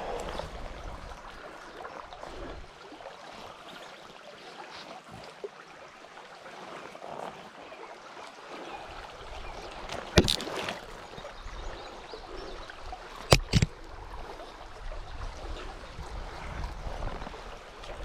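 Small creek running steadily, with a low wind rumble on the microphone coming and going. A sharp knock about ten seconds in and two more close together about thirteen seconds in.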